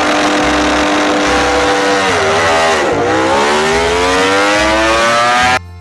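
Ducati MotoGP racing motorcycle's V4 engine running at steady revs, dipping briefly about two seconds in, then revving up in rising pitch as the bike pulls away. The sound cuts off abruptly near the end.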